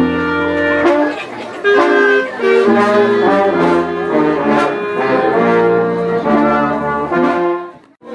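Brass band music: a melody of held notes played in several parts at once, fading out just before the end.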